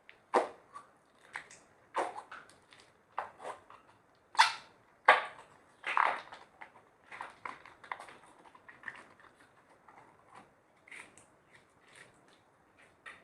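Slime being squeezed and stretched by hand: irregular wet squelches, crackles and sticky pops, the loudest a little past four and five seconds in.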